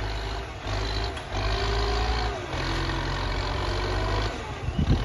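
Excavator's diesel engine running steadily, with a whine from the hydraulics that rises and falls in pitch as the machine works. A few sharp knocks come near the end.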